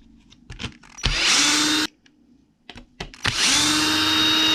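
Cordless power driver running in two short bursts of about a second each, backing screws out of an RC truck's steering rack. The motor's whine spins up and then holds steady each time, with small clicks of handling in between.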